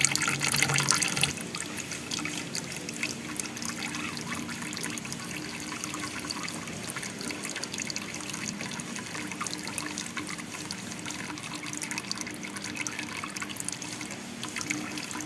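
Water trickling and splashing steadily down a small waterfall in an aquarium, louder for about the first second.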